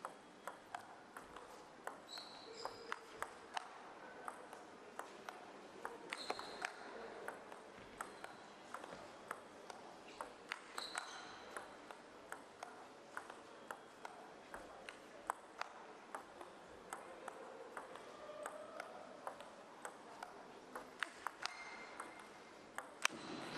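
Table tennis ball clicking off bats and table in a long rally of attacking strokes against chopped defence, a sharp click about every half second to a second, faint over quiet hall ambience. A few short high squeaks come in now and then.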